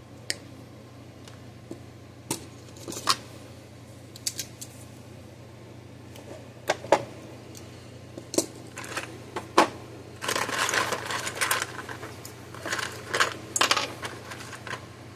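Small metal clicks and clinks of tools and parts being handled on a workbench, scattered at first, then a busier stretch of clattering and scraping about two-thirds of the way through.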